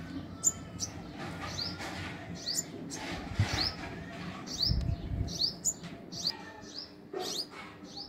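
Small songbird giving a series of short, high chirps, each sliding down in pitch, about one or two a second, some in quick pairs. A couple of low bumps come near the middle.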